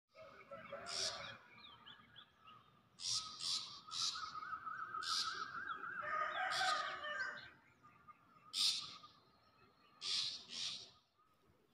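Several birds calling: short harsh calls come every second or so, with a warbling song running through the middle.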